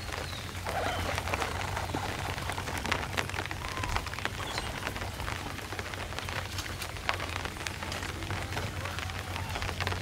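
Steady rain falling, with many small drop ticks, over a steady low hum.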